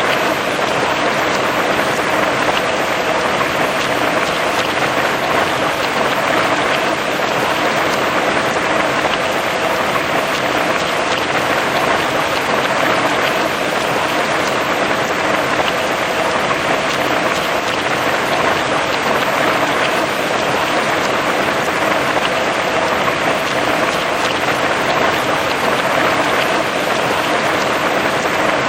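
Heavy rain falling steadily on grass and trees, a dense, even hiss of drops.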